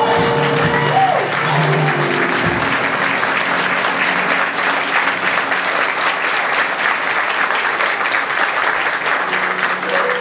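Theatre audience applauding, starting over the final held note of the song and band, which ends about two seconds in. The applause then continues steadily, with a few held notes from the band returning near the end.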